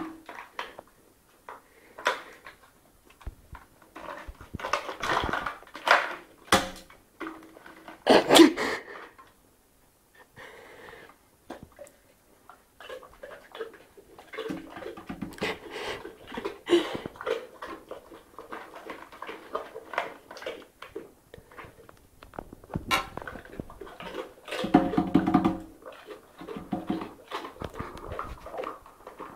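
A person eating noisily with their face in a small plastic tray: irregular slurping, smacking and snuffling, with sharp clicks and knocks from the tray on a glass tabletop. There is a short lull about ten seconds in.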